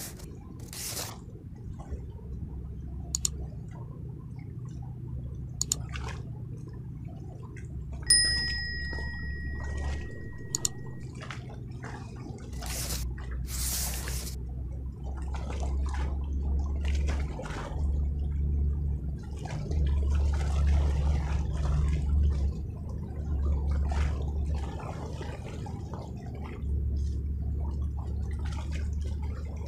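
Swollen, flooded river rushing steadily, with gusts of wind rumbling on the microphone. A single clear ding rings out about eight seconds in, and a few sharp clicks are scattered through.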